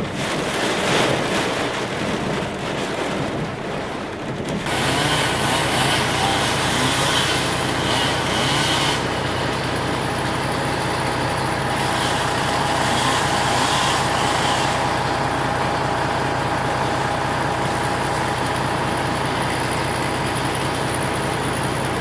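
Strong thunderstorm wind buffeting a vehicle, heard from inside the cabin as a steady rushing noise mixed with the vehicle's own running hum. About four and a half seconds in, the sound changes suddenly to a steadier hum with a few constant tones.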